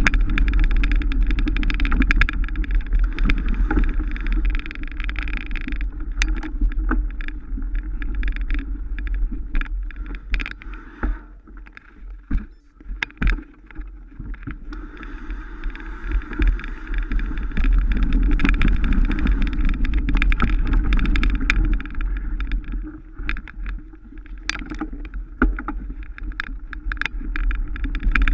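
Mountain bike riding over an off-road trail, heard from an onboard camera: a deep wind rumble on the microphone, tyre and trail noise, and frequent clicks and knocks of the bike rattling over bumps. It goes quieter for a few seconds about halfway through, then picks up again.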